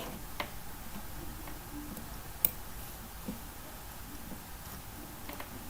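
Computer mouse clicks: a few scattered sharp clicks over a low steady background hiss, the loudest about halfway through.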